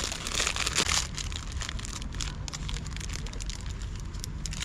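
Plastic bread wrapper crinkling: dense crackling in the first second, then scattered crackles, over a steady low rumble.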